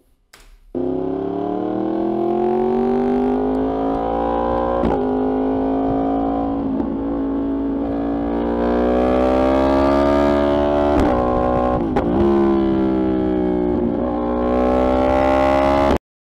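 Yamaha R1's crossplane inline-four through a Spark titanium exhaust system, riding on the road with the revs rising and falling and several short breaks in the note. The sound cuts off suddenly near the end.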